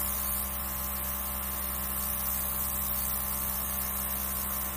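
Small airbrush compressor running with a steady electric hum, over a steady high hiss of air from the airbrush spraying food colour.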